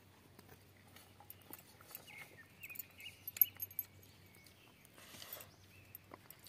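Faint clicks and soft squelches of hands working rice and curry in a steel plate while eating, with a sharper tick about three and a half seconds in. High wavering chirps sound in the background for a couple of seconds in the middle.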